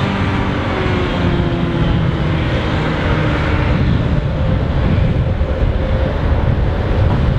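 Mercedes-Benz Actros 510 truck's diesel engine running under load as the rig moves off slowly, a steady deep rumble whose pitch sinks slightly in the first second or two.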